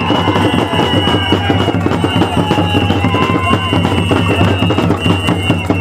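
Rhythmic drumming with rapid beats, with long, steady high-pitched tones held over it that start and stop every second or two.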